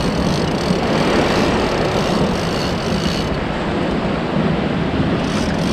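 Strong wind buffeting the microphone in a steady, gusty rumble, mixed with surf washing over the rocks.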